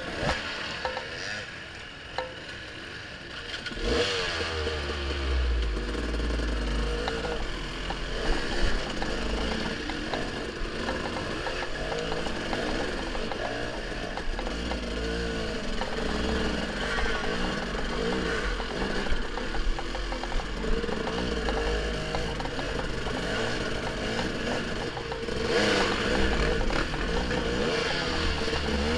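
Dirt bike engine revving up and down in short bursts as the bike crawls up a rocky climb, with occasional knocks of the bike against rock. It is quieter for the first few seconds, gets louder with a low rumble from about four seconds in, and rises again near the end.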